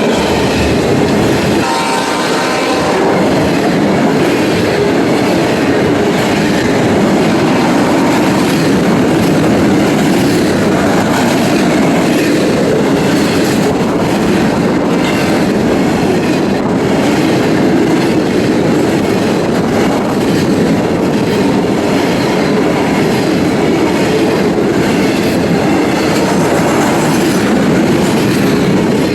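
CSX rail train rolling past at close range: a steady rumble and clatter of steel wheels over the rails that carries on unbroken. A short horn-like tone sounds about two seconds in.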